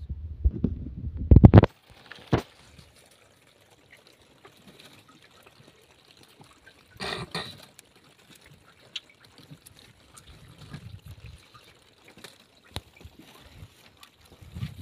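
Loud, muffled underwater rumble of water against a submerged camera, cutting off abruptly after a second or two. Then faint dripping and trickling water with scattered small knocks from wet plastic lobster crates being handled, and a short louder splash or scrape about seven seconds in.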